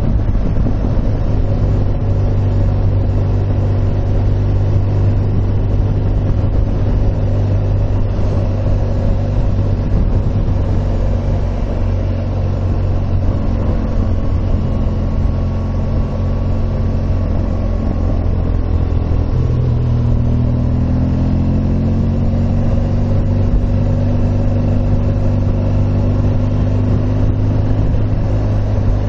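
Motorcycle engine running steadily at road speed with wind noise. About two-thirds of the way through, the engine pitch rises as the bike accelerates.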